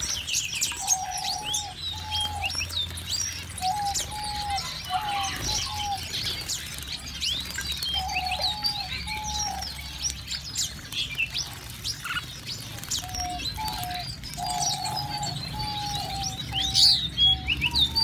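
A mixed flock of small aviary finches chirping and twittering constantly, with runs of lower, flat repeated notes, while the birds splash in a shallow bath of water.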